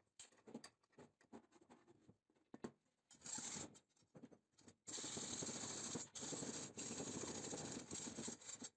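A small piece of copper tube being cut in half: a few light ticks, then a faint, steady rasping scrape in strokes about a second long with short breaks.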